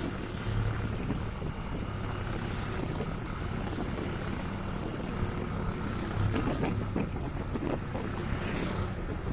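1974 Triumph Trophy's 500cc parallel-twin engine running steadily while the motorcycle is ridden, with wind rushing over the microphone.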